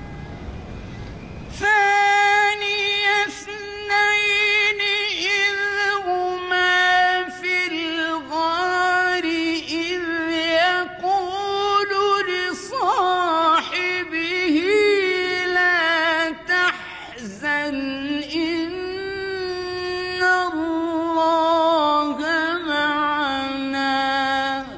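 A solo male voice in melodic mujawwad Quran recitation: long, high, ornamented melismatic phrases with short breaks for breath, settling to a lower pitch over the last several seconds. It begins about a second and a half in, after low background noise.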